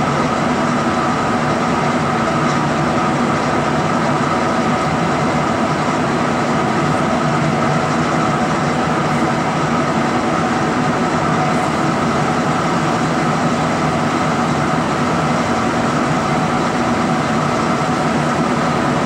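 Met One CNC-1104 condensation nucleus counter running while it counts: a steady mechanical hum carrying several steady tones.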